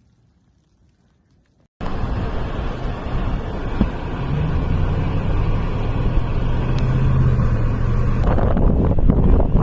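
Near silence for about two seconds, then a sudden jump to loud wind buffeting the microphone in a snowstorm, with a low steady hum beneath it.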